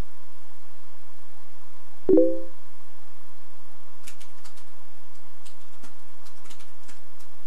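Facebook chat new-message notification: a single short pitched pop about two seconds in. It is followed by a run of computer keyboard keys clicking as a reply is typed.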